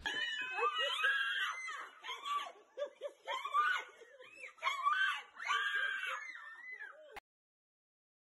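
A person's high-pitched squealing and whimpering in repeated short bursts, which cuts off abruptly about seven seconds in.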